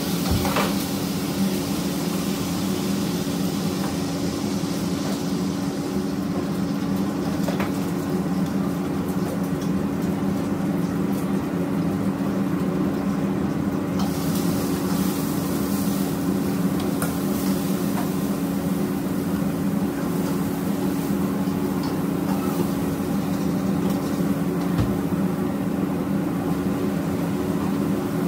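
Commercial gas wok burners running with a steady low hum, food sizzling in the wok, and a metal ladle knocking against the wok now and then. About halfway through the sizzling gets louder, with more ladle clatter, as something is poured into the hot wok.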